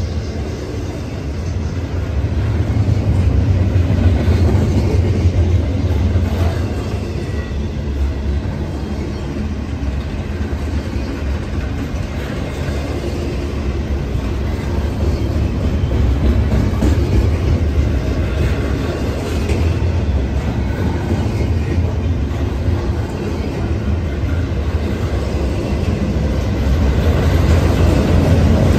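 Double-stack intermodal freight train's container well cars rolling past: a loud, steady rumble of steel wheels on rails with rapid clickety-clack from the wheels.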